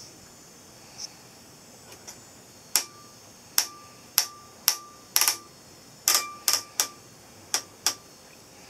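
About a dozen sharp clicks, irregularly spaced and some in quick pairs, starting nearly three seconds in, over a faint steady high whine: clicks from operating the controls of a Telequipment D1011 oscilloscope.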